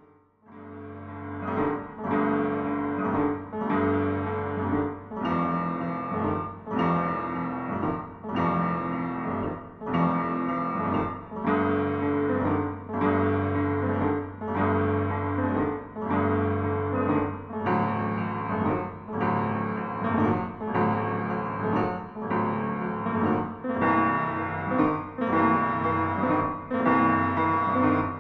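Instrumental piano music fading in, with a chord struck about once a second over a steady low bass note.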